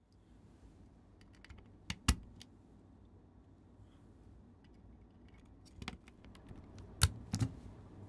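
Scattered sharp clicks and taps of mechanical keyboard parts being handled, not steady typing: a pair of loud clicks about two seconds in, another around six seconds, and a loud pair about seven seconds in, with fainter ticks between.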